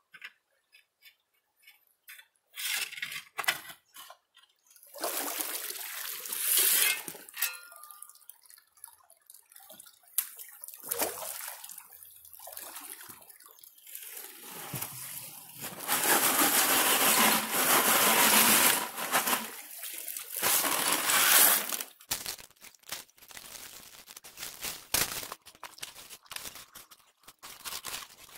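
Shallow creek water splashing and sloshing in several bouts as creek-bed gravel is dug with a shovel and handled in plastic buckets. The loudest bout lasts about six seconds past the middle. Light clicks and scrapes of gravel follow near the end.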